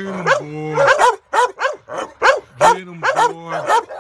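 Large blue bulldog barking over and over, about three barks a second, mixed with short drawn-out pitched calls.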